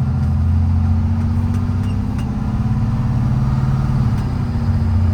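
PACCAR PX-6 inline-six diesel of a 2009 Kenworth T370 truck running under way, its note rising slightly and then dropping about four seconds in.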